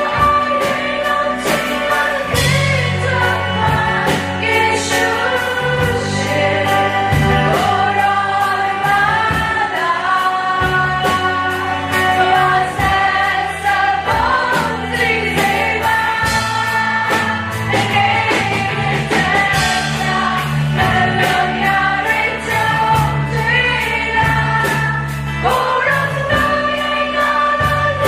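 Live Burmese-language worship song: two women sing lead into microphones over a band of keyboard, guitars, bass and drums with a steady cymbal beat, and the congregation sings along.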